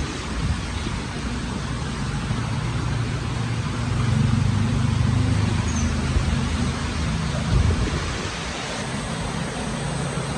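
Steady rush of wind and rain, with a low motor hum that swells from about four to seven seconds in.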